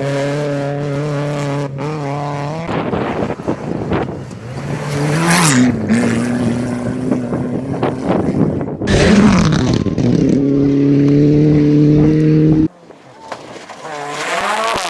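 Rally car engines at high revs, pitch rising and falling through gear changes as the cars pass, in several short clips cut together. The sound drops off sharply near the end, then another car's engine builds up.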